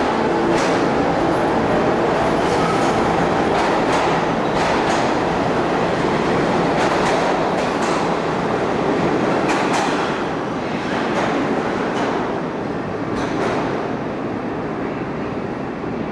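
New York City subway train running along an underground station platform: steady rumble of steel wheels with repeated clacks over rail joints, easing slightly after about ten seconds.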